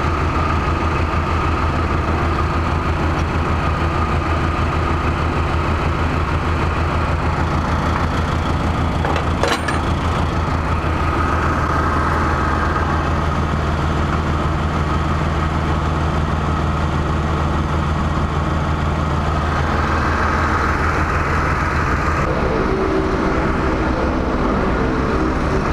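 Airport ground-support vehicle's engine running steadily, with a single sharp click about nine seconds in and a change in its note near the end.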